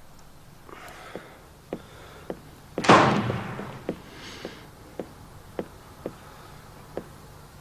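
A door shuts with a loud bang about three seconds in, its sound fading slowly in the room. Short, sharp footsteps tap about two a second around it as two people walk in.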